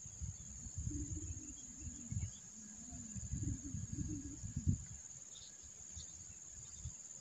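Steady high-pitched insect drone in the background, with low rumbling and a sharp knock through the first five seconds that then die away.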